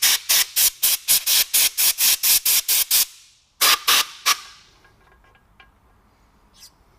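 Compressed-air blow gun fired in quick short blasts, about four a second, then three more after a brief pause, blowing metal shavings off a valve seat cutter. A few faint ticks follow.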